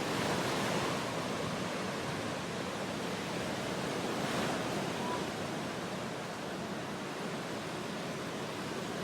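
Surf breaking on a beach: a steady rush of waves that swells slightly near the start and again about four seconds in.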